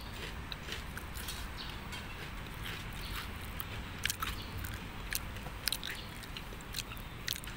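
Sun-dried rice frying in oil in a wok: scattered sharp crackles and pops over a steady low rumble.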